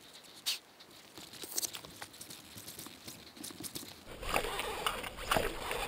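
Crunching and scraping in loose dirt as a stuck dirt bike is hauled and shoved by hand, with scattered knocks; the engine is not running. The scraping gets louder and busier about four seconds in.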